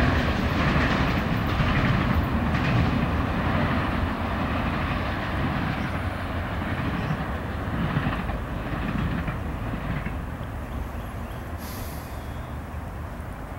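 Mixed freight train's cars rolling away on the rails: a low rumble with wheel clicks over the rail joints, fading gradually as the end of the train recedes.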